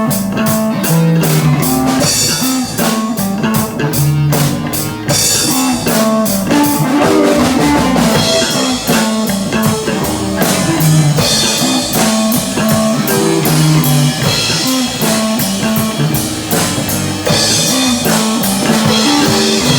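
Instrumental passage of a rock song: electric guitar and bass over a drum kit keeping a steady beat, with repeated cymbal crashes.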